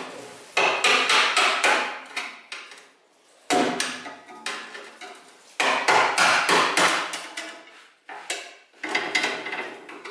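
Hammer blows on the sheet-steel wheel tub of a 1973 VW Bay Window camper, in about five quick runs of strikes with short pauses between them, as the old wheel tub is knocked and cut out.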